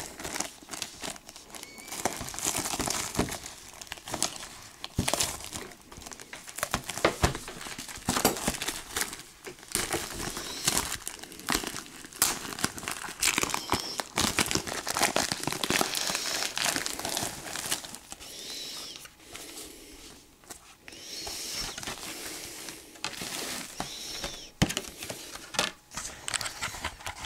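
Clear plastic wrapping being peeled off a Blu-ray case and crumpled by hand, crinkling and crackling irregularly throughout.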